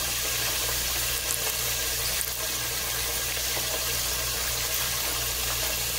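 Steady sizzling hiss over a low, constant hum, from a pot of stewed chicken left simmering uncovered on the stove.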